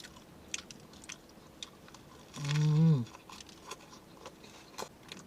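A person chewing a mouthful of buffalo chicken sandwich, with many small wet clicks of the mouth, and a short hummed "mm" from the eater about halfway through.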